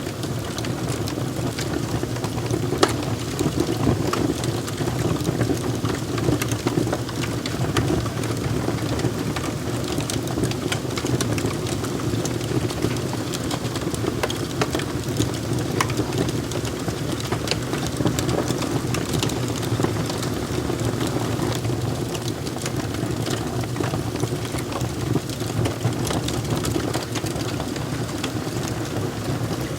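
Wood fire crackling: a steady low rush of burning with frequent small sharp pops and snaps scattered throughout.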